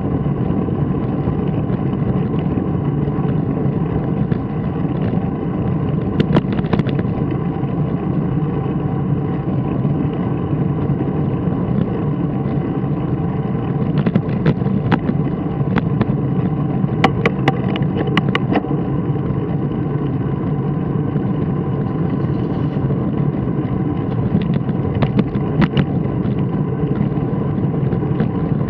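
Steady drone of ride noise picked up by a camera mounted on a moving vehicle, broken by a few short groups of sharp clicks, the thickest a little after halfway.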